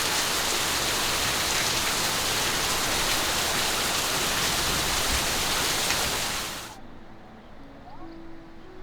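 Heavy rain pouring down, an even loud hiss that fades out quickly about six and a half seconds in.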